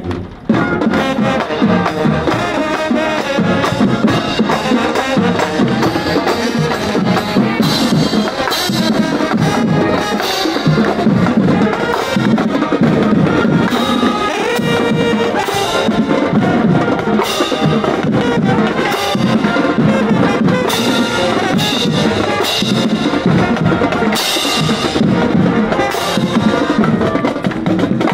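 High school marching band playing, with brass over a drum section that keeps a steady beat with frequent sharp strokes.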